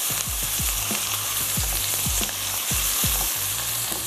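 Oil sizzling as diced potatoes and onion fry in a nonstick wok, with a spatula stirring and knocking softly against the pan about three or four times a second.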